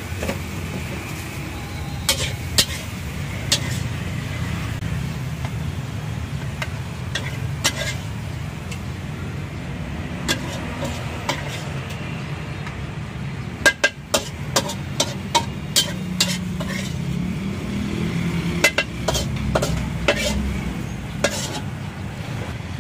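Metal spatula scraping and clinking against a steel wok as stir-fried noodles are tossed and scooped out, with frying sizzle over a steady low rumble. A quick run of clinks comes about two-thirds of the way through.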